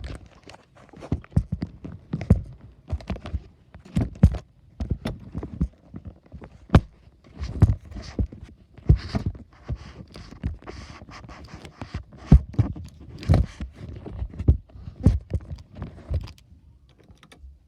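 Handling noise of a camera being held and moved: irregular knocks, thuds and rustling against the microphone, several a second, dying away near the end.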